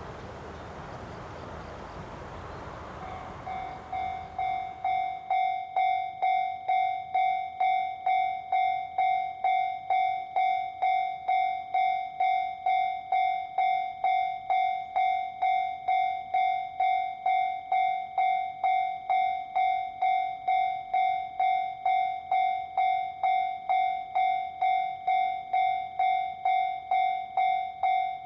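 Railroad crossing warning bell ringing, an even repeated ding of about two strikes a second that starts three to four seconds in. Before it begins there is a steady rushing noise.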